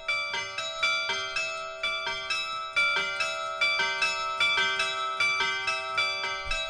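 Church-tower carillon playing a Japanese melody, its bells struck at about three notes a second, each note ringing on under the next.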